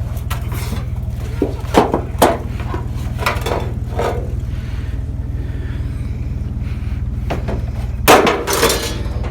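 Truck engine idling steadily, with a scattering of short knocks and clatters; the loudest clatter comes near the end.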